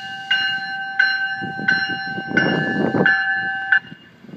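A railroad bell striking steadily, about one and a half strokes a second, as a train goes by, with the rumble of the train swelling in the middle. The bell stops a little before the end.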